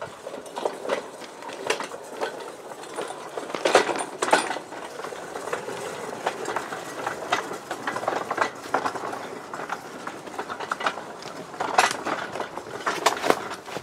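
Small hand-pushed narrow-gauge railway wagon loaded with steel girders, rolling along the track with continual rattling and knocking of metal. Sharper knocks come about four seconds in and again near the end.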